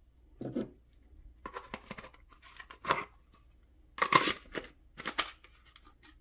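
A CZ 75 Shadow 2 pistol handled and pushed into a Safariland 578 GLS polymer holster: scattered plastic-on-metal clicks and short scrapes, the loudest cluster about four seconds in as the pistol goes into the holster.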